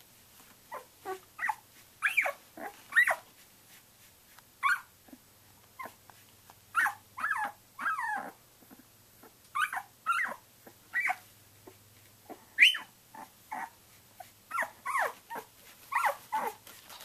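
Twelve-day-old Samoyed puppy whimpering and squeaking: a string of short, high, wavering cries, one or two a second, with brief pauses between clusters.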